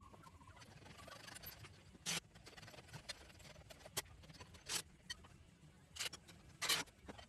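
Scattered light clicks and knocks of hand tools and parts being handled during the teardown of a garden tractor, irregular and a few seconds apart, with the strongest near the end.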